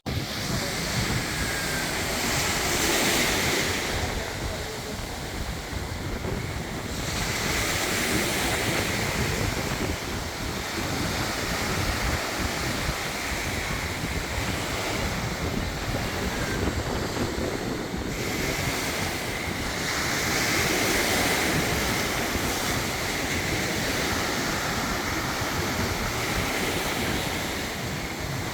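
Ocean surf breaking and washing ashore in slow swells, with wind buffeting the microphone.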